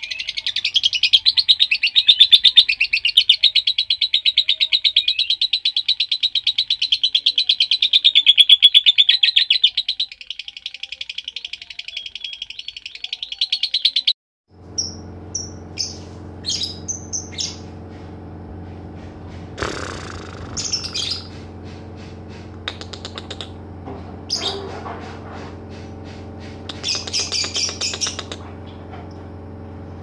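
Lovebird chattering in a long unbroken trill of very fast, high-pitched pulses (the 'ngekek' song), which cuts off suddenly about 14 seconds in. After that a steady low hum runs under scattered short lovebird chirps.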